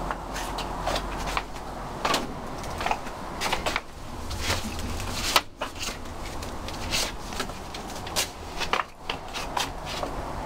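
Handling noise from a handheld camera being moved about: irregular sharp clicks and knocks over a steady low outdoor hum.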